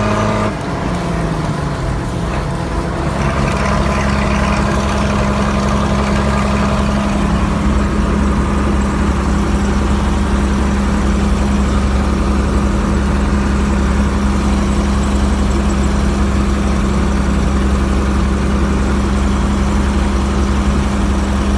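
Tata 1210 D truck's diesel engine dropping from raised revs back to idle about a second in, then idling steadily.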